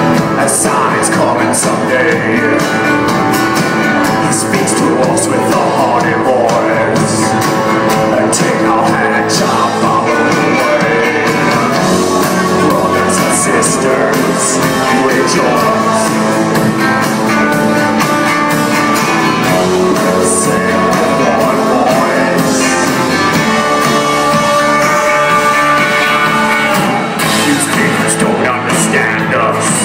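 Live band playing a song: a singer with acoustic guitar, backed by electric guitar and the rest of the band, loud and steady, heard from among the audience in a concert hall.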